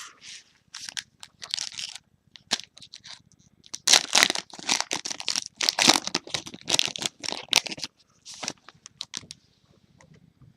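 Foil trading-card pack wrappers being torn open and crinkled by hand: irregular crackling and tearing, busiest in the middle and tailing off near the end.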